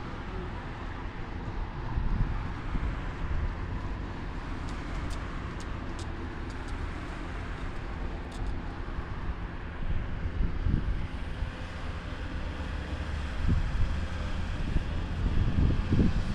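Steady low engine rumble from road vehicles or machinery, with a few faint high clicks around the middle.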